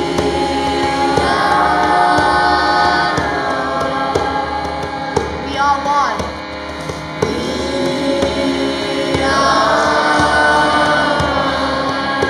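Group chanting led by a woman's voice, with other voices joining, over a steady harmonium drone. Sung phrases swell about a second in and again around nine seconds.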